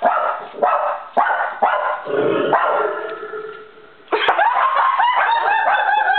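Small Eskimo-poodle mix dog barking several times in quick succession. About four seconds in, a quick run of short repeated rising tones follows, about three a second.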